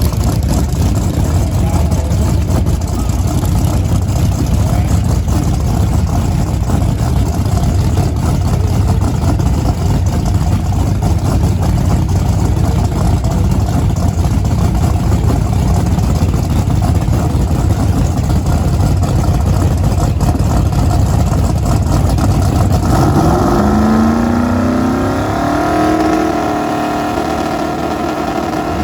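Drag car engine running with a loud, rough low rumble. About 23 seconds in the rumble drops away and a clearer engine note rises in pitch.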